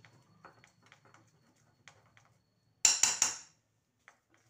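Spoon beating thick besan batter in a bowl: light, irregular clicks of the spoon against the bowl, with a louder clattering burst about three seconds in.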